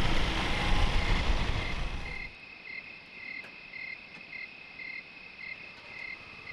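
Scooters riding at night, a loud running noise that cuts off about two seconds in; after it, night insects chirping in an even pulse about twice a second over a steady high drone.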